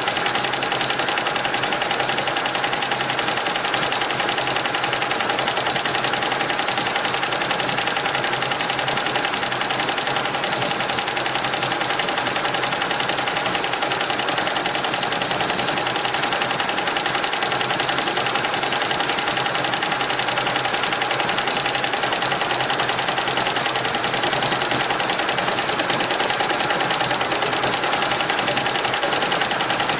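Richpeace roll-to-roll multi-head embroidery machine stitching at speed: a fast, even mechanical rattle of the needle heads, with a steady tone underneath.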